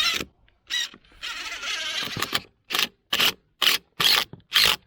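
Scraping from work on the conduit set-up: a longer scrape about a second in, then a run of short, even strokes about two a second.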